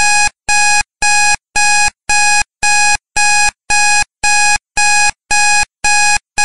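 Countdown timer's alarm going off at 00:00, signalling that the time is up: a loud electronic beep repeated steadily about twice a second, with short gaps between beeps.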